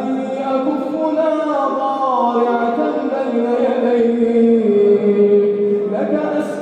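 A man chanting an Arabic supplication in a slow melodic style, holding long drawn-out notes that slide down between pitches, with a new phrase beginning near the end.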